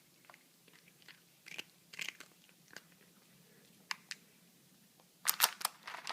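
A cat crunching and chewing dry Whiskas cat food: scattered sharp crunches, coming thick and fast near the end.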